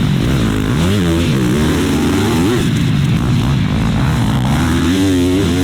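Motocross dirt bike engines being ridden hard, revving up and dropping back in pitch several times.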